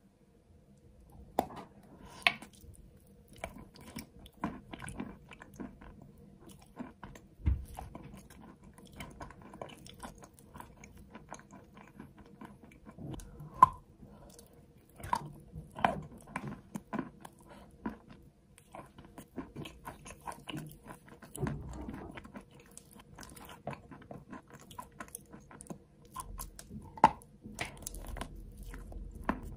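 A person biting and chewing a lump of chalk coated in clay paste: irregular crunches and chewing throughout, with a few louder bites, the loudest about fourteen seconds in and another near the end.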